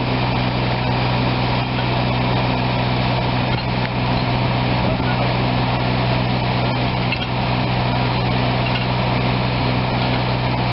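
Mobile crane's engine running steadily at a constant speed, a low even drone that does not change.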